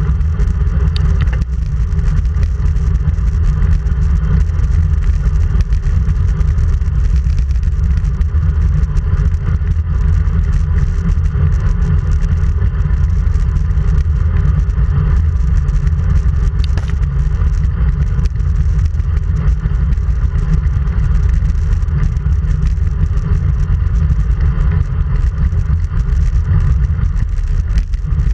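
Steady wind rumble on the microphone of a handlebar-mounted camera on a road bike riding at speed, with road noise underneath.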